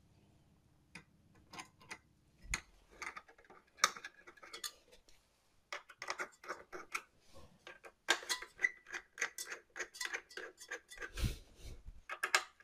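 Faint, irregular metallic clicking and ticking, in quick runs, as a screwdriver turns the CPU air cooler's spring-loaded mounting screws down onto the bracket. There is one dull knock a little after 11 seconds.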